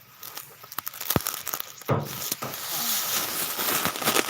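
Rice stalks being threshed on a manual rice thresher: crackling and rustling of straw and grain, with a sharp knock about a second in, then a steady rustling rush from about two seconds on.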